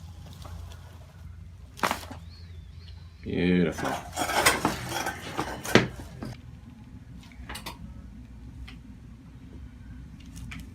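Sharp cracking clicks from a patient's neck joints during a mid-cervical chiropractic adjustment. One click comes about two seconds in and a cluster of clicks around four to six seconds, over a low steady room hum.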